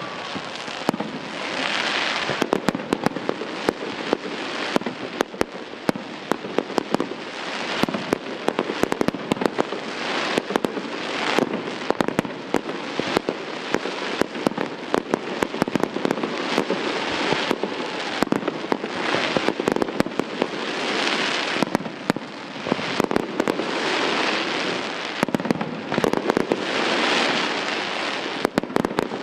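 Aerial fireworks display: a rapid, unbroken run of sharp bangs from bursting shells, over a rushing crackle that swells and fades every few seconds as rockets climb and break.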